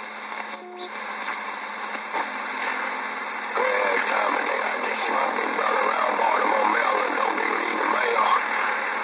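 CB radio receiver on channel 28 hissing with narrow, tinny static during skip (DX) reception. Near the start it drops out briefly with a short beep, and from about three and a half seconds in, garbled, unintelligible voices of distant stations come up through the noise, louder.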